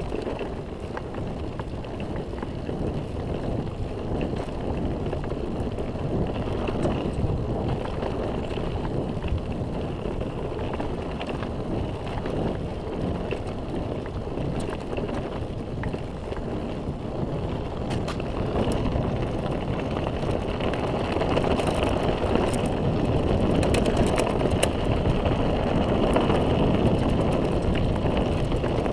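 Mountain bike rolling fast downhill on a dirt and gravel road: a continuous rumble of tyres on loose ground with the bike rattling. It grows louder over the last third, with sharper clicks and rattles.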